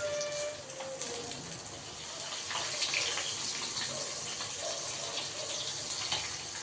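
Halwa (black pomfret) fish sizzling as it fries in hot oil: a steady hiss with scattered crackles and pops.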